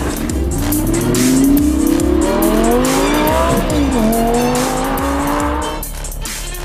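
Audi R8 V10's V10 engine accelerating hard: the revs climb for about three seconds, drop sharply at an upshift, then climb again before fading near the end. Backing music with a steady beat plays underneath.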